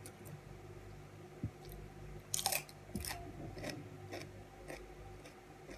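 Close-up chewing and crunching of crisp raw vegetables, a run of short crunches with the loudest cluster about two and a half seconds in.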